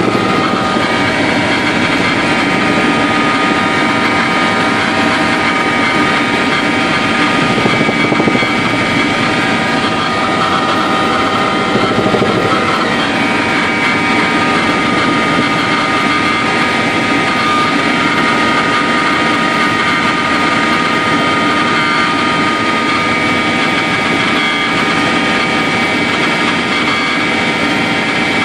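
Helicopter in flight heard from inside the cabin: the engine and rotors make a loud, steady drone with steady whining tones running over it.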